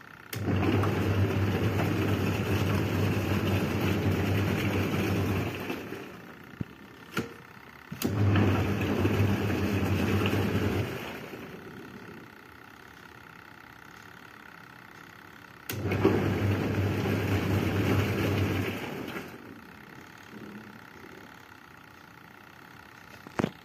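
Artel TG-100 FP twin-tub washing machine's wash motor running in three stretches of a few seconds each, with quiet pauses between: the impeller churning hot water and laundry with a steady electric hum. Sharp clicks come between the stretches, and a few more near the end.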